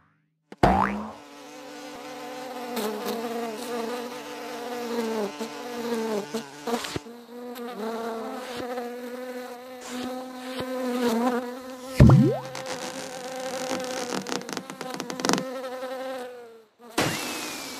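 A fly buzzing around, its drone wavering up and down in pitch as it moves, with a few sharp clicks along the way. About twelve seconds in comes a sudden loud upward swish.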